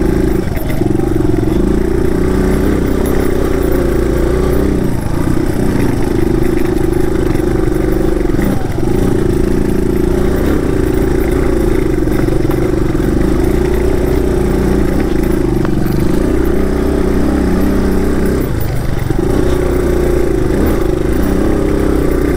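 Single-cylinder dual-sport motorcycle engine running steadily as the bike is ridden, its note dipping briefly about 5, 9 and 19 seconds in.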